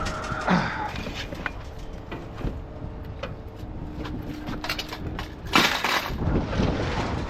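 Scrap metal being unloaded and thrown onto a pile: scattered clanks and knocks, with one loud crash about five and a half seconds in.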